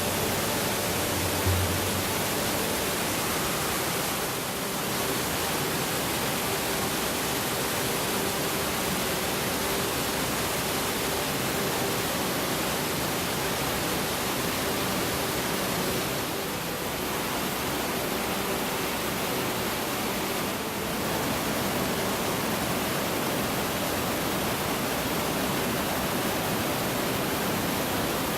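Waterfall: a steady rush of falling water, dipping slightly a few times.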